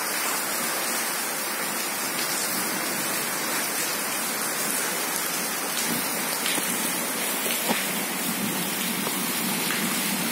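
Rain falling steadily outside, a constant even hiss of rain on the ground, with one faint knock about three-quarters of the way through.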